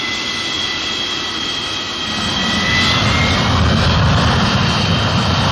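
MiG-23BN's turbojet engine running on the ground, with a steady high whine. About two seconds in, a deeper rumble builds under it and the sound grows louder, as the engine runs up.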